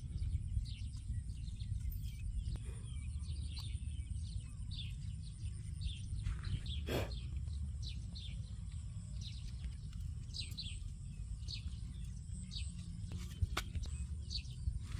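Birds chirping in short repeated calls over a steady low rumble, with scattered clicks and one louder knock about seven seconds in.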